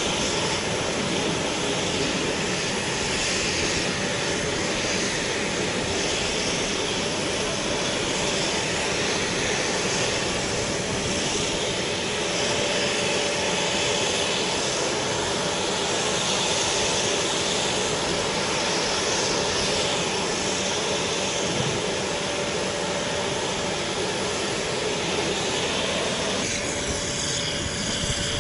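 Engines of a large military transport aircraft running steadily: a constant noise with a steady hum underneath. The sound changes abruptly near the end.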